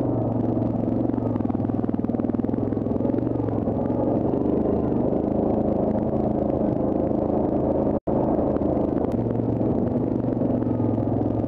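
Yamaha Grizzly ATV's single-cylinder four-stroke engine running steadily at low speed as the quad crawls over a rocky trail. The sound cuts out for a split second about eight seconds in.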